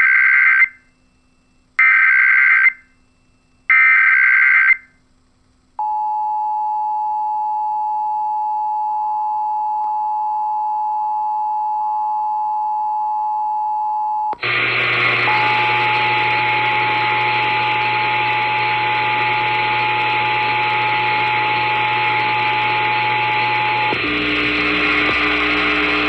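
Emergency Alert System test coming over a weather-alert radio: three short bursts of EAS digital header tones about two seconds apart, then a steady attention-signal tone that holds for about eighteen seconds. About fourteen seconds in the tone picks up a loud hiss of noise, and it cuts off shortly before the end.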